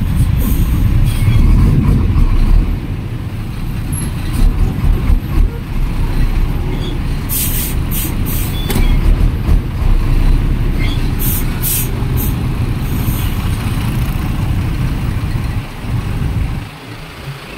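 Road traffic heard from a motorcycle: a steady, loud low rumble of engines, with several short hissing bursts a little past the middle.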